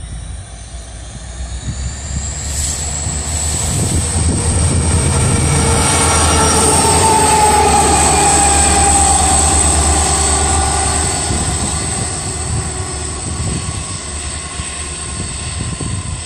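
Indian Railways WDG4 diesel-electric locomotive 12829, with its two-stroke EMD 710 V16 engine, running light past at close range. The engine rumble and a high whine build up, are loudest about six to ten seconds in, then fade as it moves away, the whine dropping slightly in pitch.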